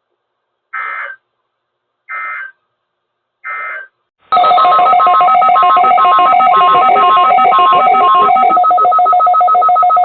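Three short screeching Emergency Alert System data bursts about a second and a half apart, the end-of-message code that closes a NOAA Weather Radio broadcast. About four seconds in, a loud continuous electronic alert tone starts: several steady tones at once with one tone beeping on and off, carrying on past the end.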